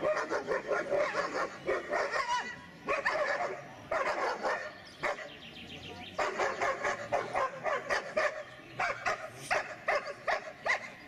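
Dog barking and yapping in quick runs of a second or two, with short pauses between them.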